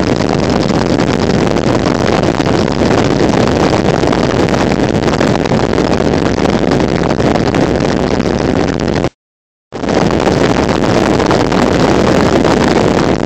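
Steady rushing road and wind noise of a car being driven, heard from inside. The sound drops out completely for about half a second around nine seconds in, then resumes.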